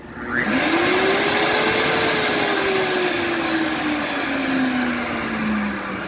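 Wolf Gourmet blender motor starting in pulse mode: it spins up sharply to a loud whir about half a second in. Its pitch then sinks slowly over the next few seconds, and the unit faults to its 'Err' error code.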